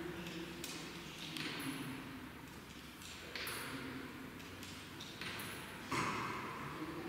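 Church interior ambience: scattered sharp knocks and clicks that echo in the hall, about one every second or so, over a faint low hum.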